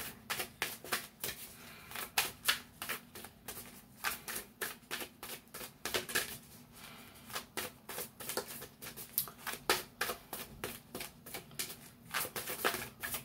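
Deck of oracle cards being shuffled by hand: a dense, irregular run of quick card snaps and flicks.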